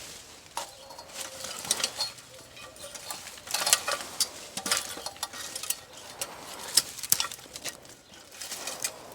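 Laurel leaves and branches rustling irregularly as the hedge is handled, with sharp clicks and snaps scattered through it.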